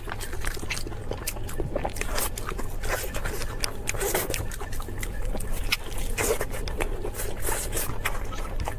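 Crispy food being bitten and chewed close to the microphone: irregular sharp crunches, several a second, over a low steady hum.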